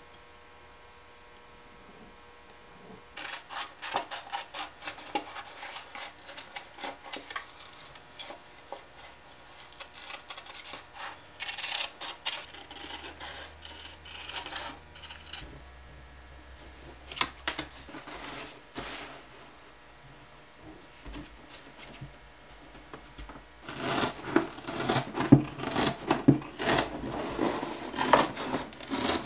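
Hand snips cutting through cardboard in irregular crisp snips, then, louder and denser near the end, cutting through thick leather.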